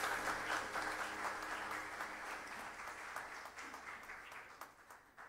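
Audience applauding, the clapping fading away steadily over a few seconds. A held low note from the backing guitar music dies out about two seconds in.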